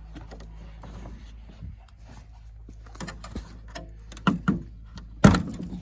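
Scattered clicks and knocks, with one loud knock about five seconds in.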